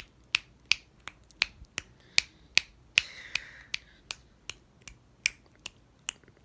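A steady run of sharp clicks, evenly spaced at a little under three a second.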